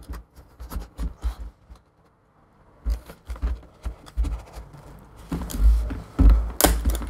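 iMac LCD panel being pulled free of its adhesive: scraping, creaking and knocking handling noises. About six and a half seconds in comes a sharp crack, the panel's glass breaking from being pulled too hard.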